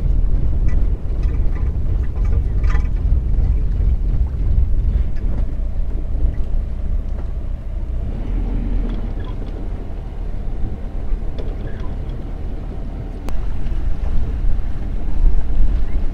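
Steady low rumble of a boat under way, with a few faint clicks in the first few seconds and one sharp tick near the end.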